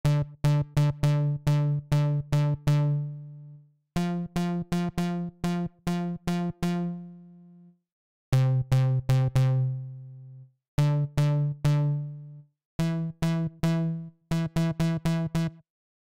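Native Instruments Massive X software synthesizer playing a low, plucky patch in five short phrases of quick repeated notes, with gaps between. Each note starts sharply and dies away, as the amp envelope's decay is being adjusted.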